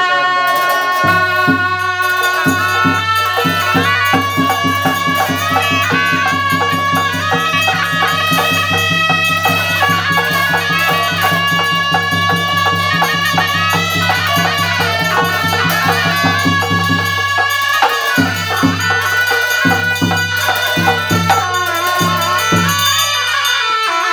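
Tibetan Buddhist ritual music: a gyaling, a reed horn, plays a wavering high melody over rapid strikes of a large frame drum and cymbals. A low steady tone lies under it until about 18 seconds in.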